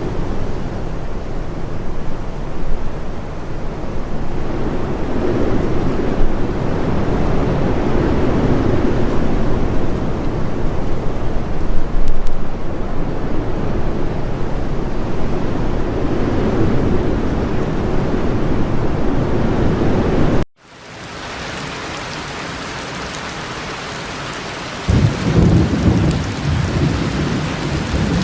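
Heavy rain pouring steadily, with rolling thunder rumbling underneath. About two-thirds of the way through the sound cuts out for a moment and comes back as lighter, even rain, and the thunder rumbles again near the end.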